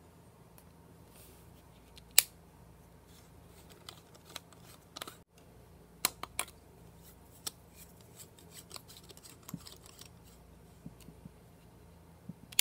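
Irregular sharp clicks and small scrapes of plastic lamp bases against a screw socket as compact fluorescent lamps are handled and a twin-tube CFL is screwed in. The loudest click comes about two seconds in, with a quick cluster of them around six seconds.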